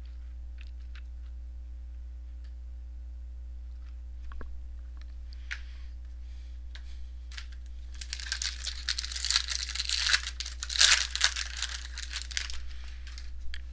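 A trading-card pack wrapper crinkling and tearing as it is opened, for about four seconds in the second half. A few faint clicks of cards being handled come before it.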